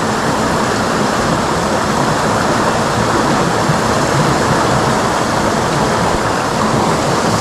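Shallow rocky river running over and between stones: a steady rush of water.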